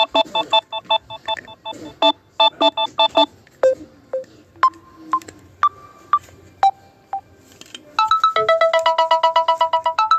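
Phone ringtones playing one after another through a smartphone speaker. First comes a fast beeping electronic ringtone of about six chord beeps a second. Then a sparse melody of single notes at changing pitches follows, and about eight seconds in a fast, busy electronic ringtone melody starts.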